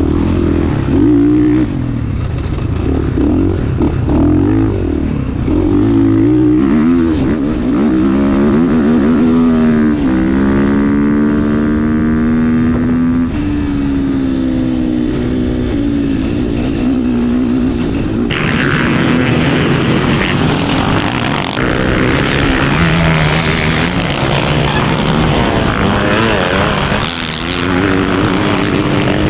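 Dirt bike engines revving and running, their pitch rising and falling. About ten seconds in, one engine's note climbs and holds for a few seconds before dropping away. Past halfway the sound turns suddenly brighter and harsher.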